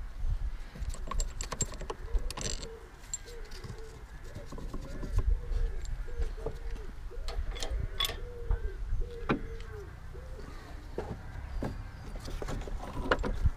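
Scattered clicks and light knocks over a low rumble, with a short rise-and-fall call repeated many times in the background from about three seconds in until near the end.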